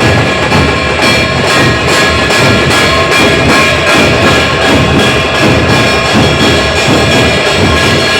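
A tafa band playing loudly: constant drumming with steady held high tones over it.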